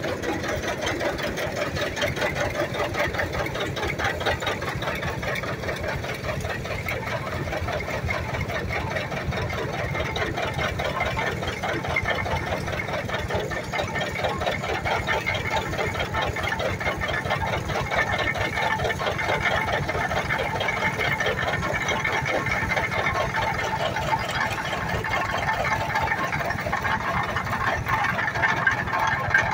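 Antique stationary straw baler running off a long flat drive belt: a steady, fast mechanical clatter from its gears and plunger, with an engine running underneath.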